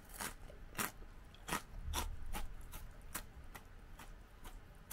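Close-up chewing of a crunchy Peyoung hot yakisoba-flavour rice cracker (senbei): a quick, even run of sharp crunches, about two or three a second.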